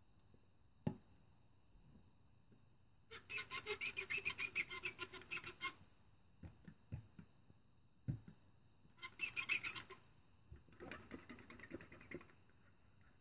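A cup and straw squeaking in runs of quick pitched squeaks, about five or six a second. A longer run of a couple of seconds comes a few seconds in and a shorter one later, with a few light knocks in between.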